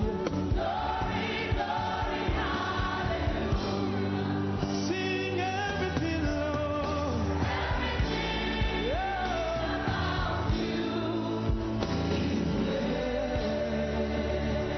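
Gospel worship song sung by a group of singers on microphones, with instrumental backing holding steady low notes.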